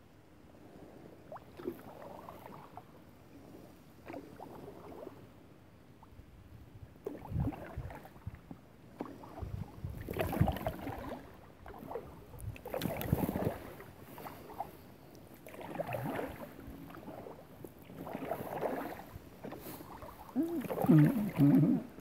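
Paddle strokes from an inflatable kayak on calm water: the blades dip and pull through the water with splashes and drips, about every two to three seconds, starting softly and growing louder.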